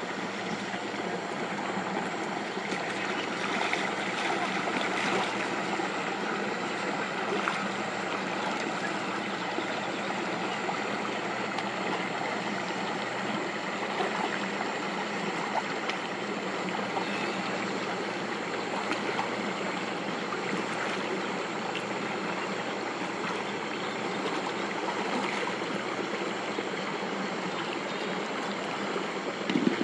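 Water rushing and trickling steadily, with faint short splashy ticks here and there.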